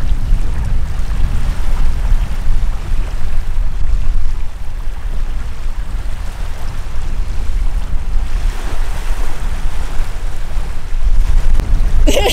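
Wind buffeting the microphone in a steady low rumble over small waves lapping in shallow lake water. Near the end a person gives a short cry as he drops off into deeper water.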